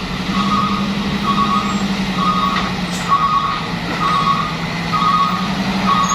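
A heavy vehicle's reversing alarm beeping about once a second over a diesel engine running steadily.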